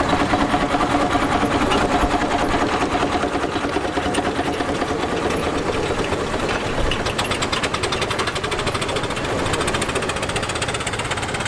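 Scale-model steam road engines running past, their exhaust beating in a fast, even rhythm.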